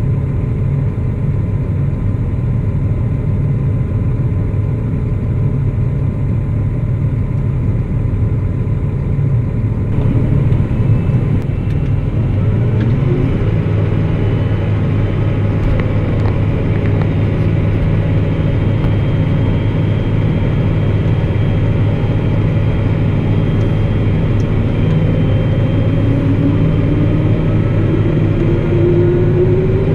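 Claas Axion 850 tractor's six-cylinder diesel engine heard from inside the cab, running steadily at low revs, then picking up revs about ten to thirteen seconds in. A thin rising whine comes in near the end.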